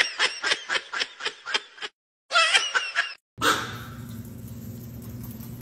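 Kitten mewing in a rapid string of short, high squeaky cries for about two seconds, then a few more a moment later. After that, about halfway through, a steady low hum with a faint hiss takes over.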